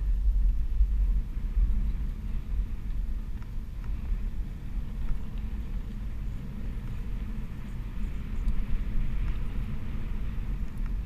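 Steady low rumble of wind buffeting the microphone, mixed with the noise of a Onewheel XR+'s single tyre rolling over a dirt trail at speed.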